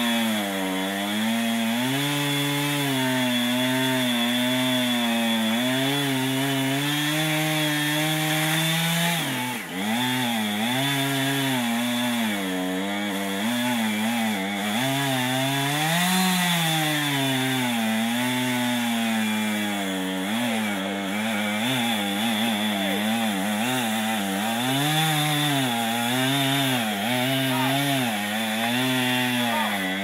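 Chainsaw running under load while cutting into an oak tree, its engine pitch wavering up and down as the cut goes on. The pitch and loudness dip briefly about nine seconds in, and the sound cuts off suddenly at the end.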